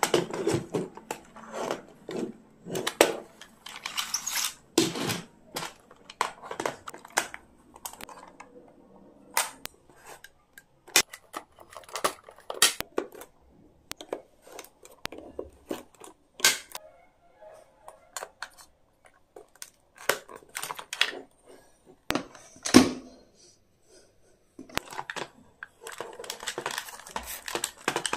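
Hard plastic pencil case being handled: scattered clicks, taps and knocks as its parts are opened and pencils are taken out. Near the end, a continuous grinding scrape as a pencil is turned in the case's built-in sharpener.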